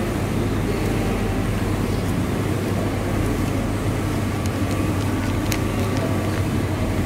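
Steady low hum and noise of a bus terminal waiting hall, with a few light clicks about five seconds in.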